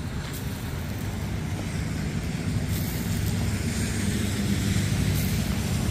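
A vehicle engine running steadily, a low rumble that grows slightly louder over the seconds.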